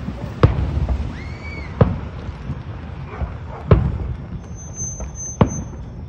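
Aerial firework shells bursting: four sharp booms, about one and a half to two seconds apart. A short whistle sounds between the first two booms.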